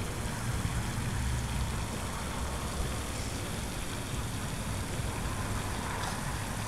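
Wind on the microphone: a steady, uneven low rumble with a broad hiss above it, and no distinct events.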